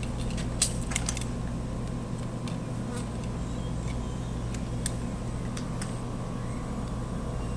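A few faint, sharp clicks of handguns being handled as empty magazines go in with the slides locked back, over a steady low hum.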